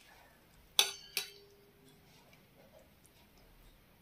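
Two sharp clinks of steel kitchenware, under half a second apart, with a brief metallic ring after them.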